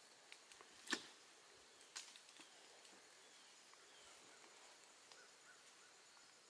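Sharp light clicks and knocks of boots and gear on strapped-on tree climbing steps, the loudest about a second in and another at two seconds, over a faint insect hum.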